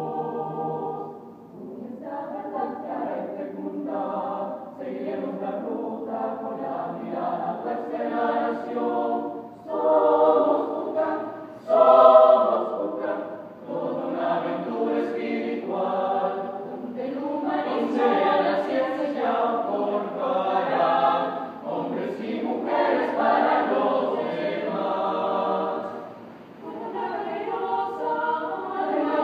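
Mixed choir of women's and men's voices singing a hymn a cappella in Spanish, in phrases with short breaks between them, loudest about twelve seconds in.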